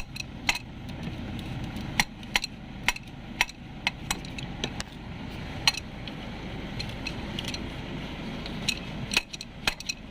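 Sharp metallic taps from an adjustable wrench striking a Ford Everest's starter motor, irregular and several in a row, thickening near the end. The starter is being knocked to free sticking carbon brushes on a starter that will not crank.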